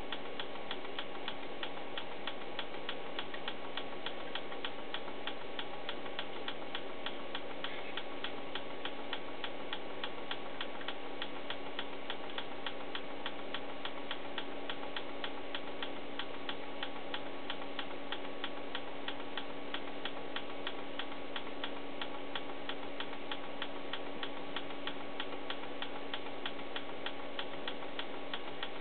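Tektronix 2445B oscilloscope ticking evenly about three times a second, in step with its readout stepping through calibration data in the Exercise 02 data dump, over a steady hum.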